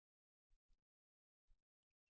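Near silence: a gap between calls, with a few faint short clicks.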